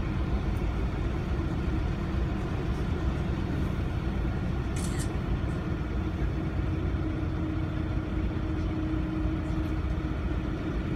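Canal tour boat's engine running steadily, a low drone heard from on board, with a steady hum growing stronger about halfway through.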